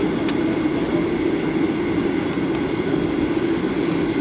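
Steady cabin drone inside a Boeing 737-800 on the ground, its CFM56 engines running at low power, heard from a seat over the wing as a constant low hum.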